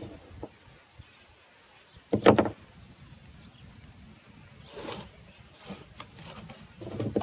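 Baling wire and the metal roasting rack being handled as a whole pig is wired down to the rack: a loud clattering rattle about two seconds in, then softer knocks and rustling.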